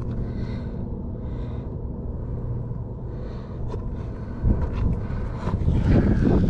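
A steady low engine hum, with rough wind rumble on the microphone growing stronger in the last two seconds.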